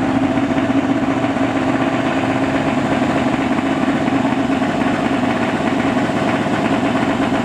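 Drag car's engine idling steadily at the starting line, a loud, even note with a fast rough pulse.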